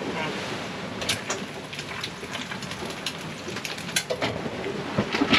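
Salt being shaken from a plastic shaker over the pans on a galley stove: a steady hiss with a few sharp clicks and rattles.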